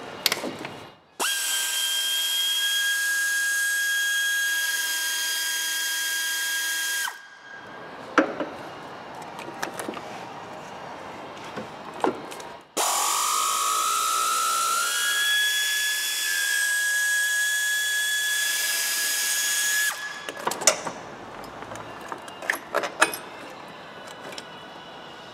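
A power driver whining steadily in two runs of about six and seven seconds, undoing fasteners, its pitch rising as the second run starts. Sharp metallic clicks and knocks of tools and parts come between the runs and after them.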